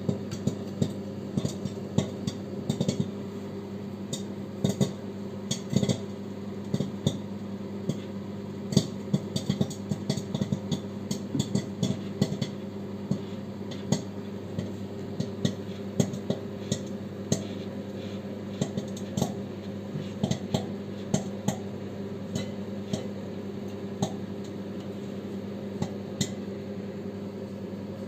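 Popcorn popping in a running microwave oven: sharp, irregular pops, several a second, knocking against the covered bowl, over the oven's steady hum.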